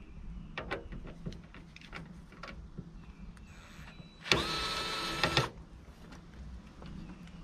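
Cordless electric screwdriver with a 5 mm hex socket running for about a second, about four seconds in, backing out a windscreen mounting screw. A few light clicks of handling come before it.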